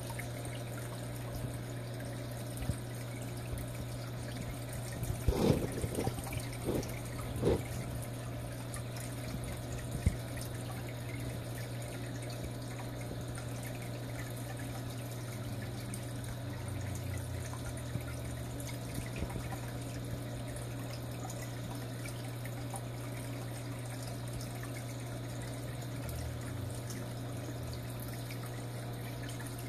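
Aquarium filter running: steady trickling water with a low hum underneath. A few knocks come between about five and eight seconds in, and one more at about ten seconds.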